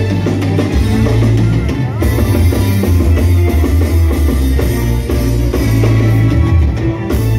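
Live reggae band playing over a large concert PA: a heavy, steady bass line and drum kit, heard from inside the crowd.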